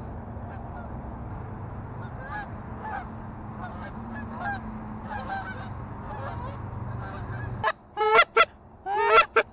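Geese honking in flight: faint scattered honks over a steady low background hum, then a run of loud, close, sharp honks in quick succession near the end.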